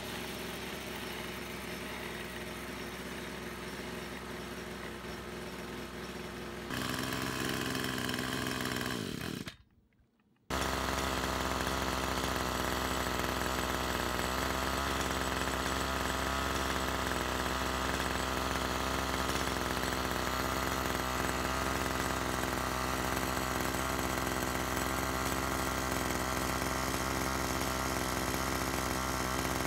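Brush cutter's small engine running steadily. It gets louder about seven seconds in, falls away to a second of near silence around ten seconds in, then runs evenly again.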